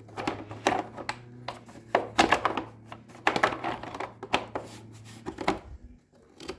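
Irregular clicks and knocks of an air filter cover being fitted back onto a lawn tractor engine, over a low steady hum that stops near the end.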